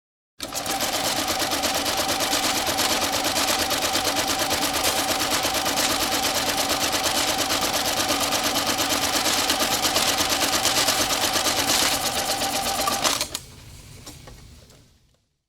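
Electric banknote counting machine running bills through at speed: a dense run of rapid paper ticks over a steady motor hum. It stops suddenly about 13 seconds in, and a much quieter run-down then fades out.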